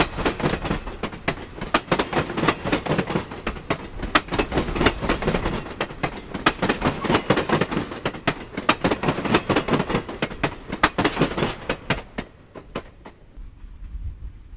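Amtrak Superliner bi-level passenger cars passing close by, their steel wheels clicking rapidly over the rail joints with a steady rumble underneath. The clatter thins out and drops away about 13 seconds in.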